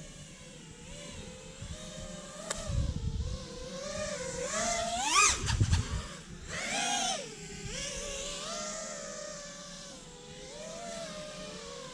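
5-inch FPV quadcopter's brushless motors and propellers whining, the pitch sliding up and down with the throttle. The pitch climbs steeply to its loudest about five seconds in, a throttle punch of the kind used in a power loop, then surges again briefly. A sharp tick comes about two and a half seconds in.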